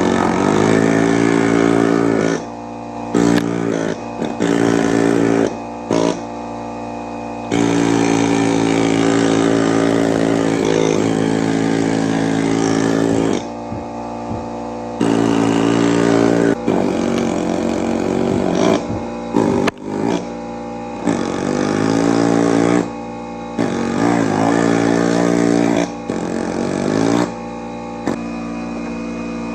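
Power chipping hammer breaking out concrete, run in bursts from under a second to about six seconds long with short pauses between, its buzzing pitch wavering as it bites. A steady hum continues under the pauses.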